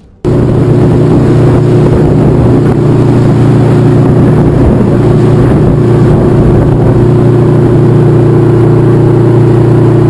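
Boat engine running steadily under way: a loud, even low hum with a rushing noise over it, cutting in suddenly just after the start.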